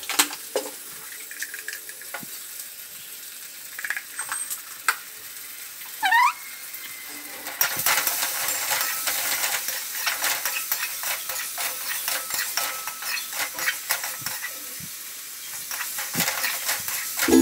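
Diced potatoes and onions frying in oil in an aluminium kadhai, stirred with a steel spatula that scrapes and knocks against the pan. There is a brief rising squeak about six seconds in. From about eight seconds in, a loud, crackling sizzle runs under the scraping.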